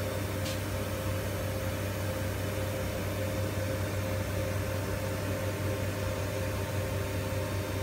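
Steady electrical hum and fan whir from the powered-up electrical cabinet of a Chevalier QP2033-L CNC vertical machining center, with its FANUC servo drives energised. There is a faint click about half a second in.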